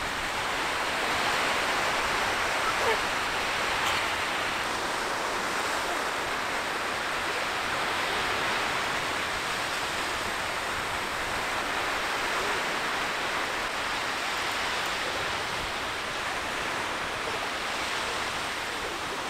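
Small waves breaking and washing up a sandy beach: a steady, even hiss of surf.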